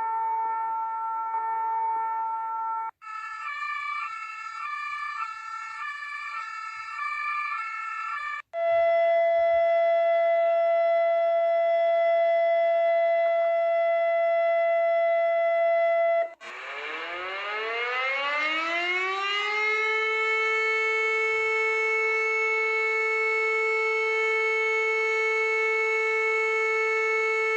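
A run of emergency alert alarm tones that change abruptly three times. First a steady chord of tones, then a pattern alternating up and down between pitches, then a single steady tone. From about halfway a siren winds up in pitch over a few seconds and then holds steady.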